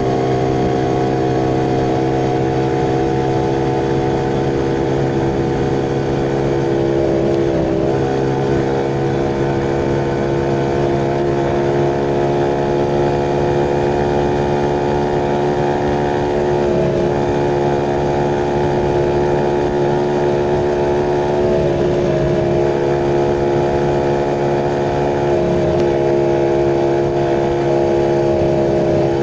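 Motorcycle engine running steadily while riding along a road. The pitch dips briefly a few times as the throttle eases.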